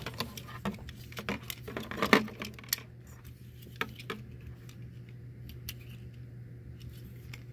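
Plastic parts of a Transformers action figure clicking and rattling as it is handled and posed: a quick run of clicks and knocks in the first few seconds, the loudest about two seconds in, then only a few scattered clicks.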